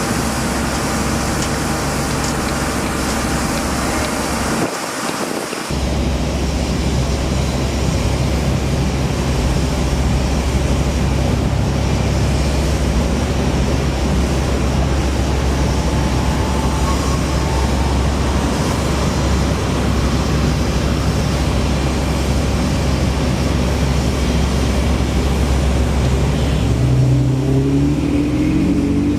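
Steady motor-vehicle traffic noise with a strong low rumble; the sound changes abruptly about six seconds in, and a pitched engine-like tone rises in near the end.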